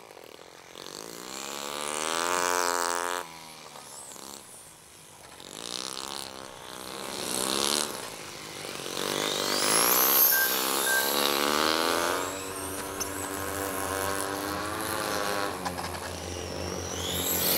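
Nitro RC motorbike's OS 20 model aero engine revving, its pitch rising and falling as it laps. It grows louder and fainter several times as the bike passes.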